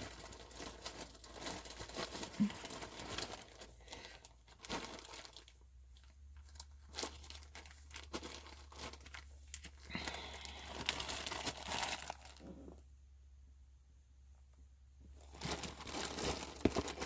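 Crinkling and rustling from rolls of zipper tape being handled and rewound, in irregular bursts, with a pause of a couple of seconds near the end.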